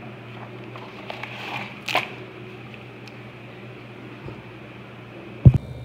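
Hardcover picture book handled on a tabletop: faint page rustling, a sharp tap about two seconds in, and a loud low thump near the end.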